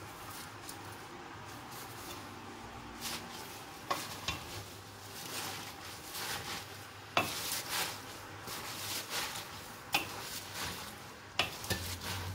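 Wooden spoon stirring and turning raw spinach leaves in a hot stainless steel pot over sautéing onions and leek, starting about three seconds in. The leaves rustle, the pan sizzles, and the spoon knocks sharply against the pot four times.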